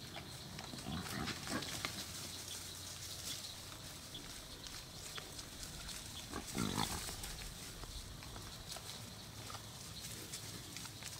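Wild hogs grunting: a grunt about a second in and a louder one after about six and a half seconds, with scattered light ticks and crackles in between.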